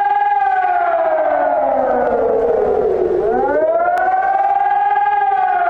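Civil defense warning siren wailing in slow rising-and-falling cycles: the pitch sinks over about three seconds, climbs again, then begins to fall near the end. It is an emergency warning signal.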